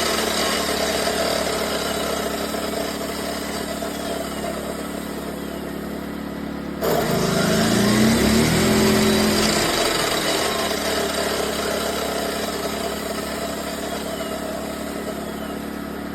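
ERAYAK 2400W inverter generator running in full (non-eco) mode while powering an electric chop saw. The saw's motor is winding down at the start; about seven seconds in it is switched on again with a sudden jump in loudness, spins up briefly, then coasts down while the generator keeps running.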